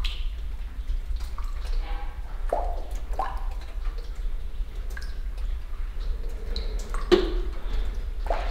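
Rainwater dripping into puddles on the floor: scattered single plops and plinks at irregular intervals, over a steady low rumble.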